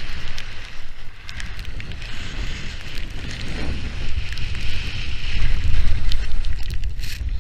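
Wind buffeting an action camera's microphone over the hiss and scrape of skis on snow, growing louder in the second half.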